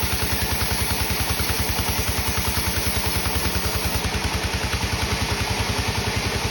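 A sawmill's engine running steadily with an even, rapid throb.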